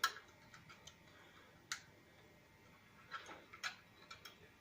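Scattered light clicks and taps of an Allen key being worked on a bicycle bolt during tightening, a few irregular clicks spread over the seconds.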